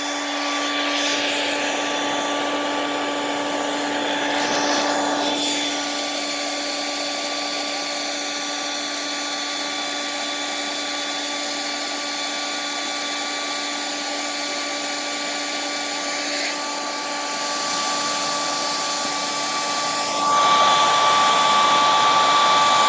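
Hand-held blow dryer running steadily, a motor whine over rushing air, getting louder near the end.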